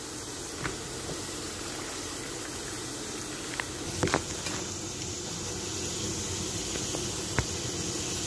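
Steady hissing and bubbling from a pot cooking on a gas stove, growing a little louder in the second half, with a few light knocks from handling about four seconds in and again near the end.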